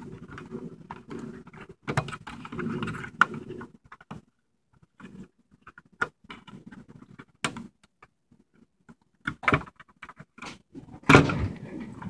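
Hands working inside an opened HP ProDesk 600 G1 mini PC: rustling and small clicks of the cable connector and the metal hard-drive bracket, then scattered sharp clicks and knocks, the loudest just after eleven seconds.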